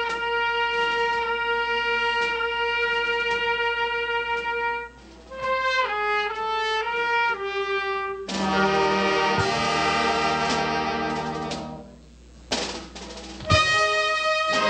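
Brass band playing: a trumpet holds one long note, then plays a short falling run of notes, and the fuller band with low brass comes in about eight seconds in. Near the end the music drops away briefly with two sharp knocks before the band plays on.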